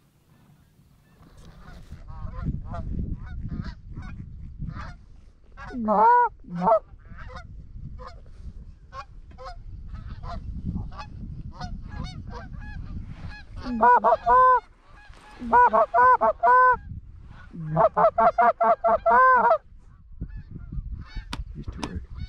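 A flock of geese honking as they approach: many short, fainter honks throughout, with louder, closer bursts of rapid honking about six seconds in and repeatedly in the second half.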